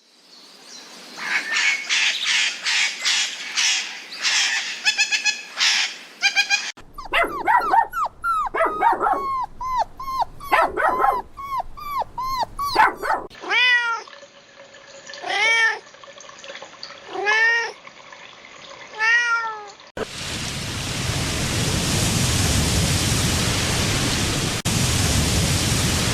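Cats meowing: a quick run of short calls, then high meows in fast succession, then a few separate, well-spaced meows. In the last six seconds a steady, loud hiss of noise takes over and stops abruptly.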